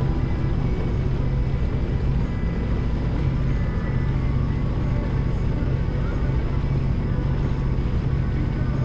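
Personal watercraft engine running at a steady cruising speed, a constant drone with a faint higher whine, over the rush of water along the hull.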